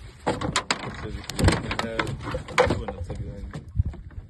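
Repeated knocks and thumps of a landed fish and landing net being handled and dropped onto a boat deck.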